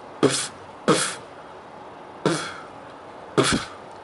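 Beatboxed bass drum made with the mouth: four separate kicks, each a 'b' burst of air forced out through the lips, which keep vibrating briefly so that each kick trails off into a short buzz.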